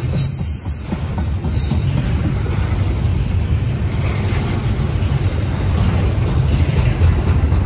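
Double-stack intermodal well cars rolling past on the rails: a steady rumble of steel wheels on track.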